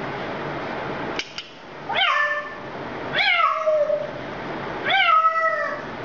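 Three drawn-out meows at about 2, 3 and 5 seconds in, each with a quick rise and then a long slide down in pitch. Before them a steady hiss cuts off about a second in, followed by two faint clicks.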